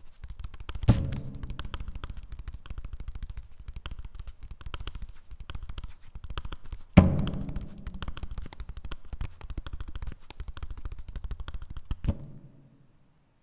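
Paper percussion: a fast, dense roll of strikes on paper, with a deep booming hit about a second in and a louder one about seven seconds in. A last hit comes near the end, and then the roll stops abruptly.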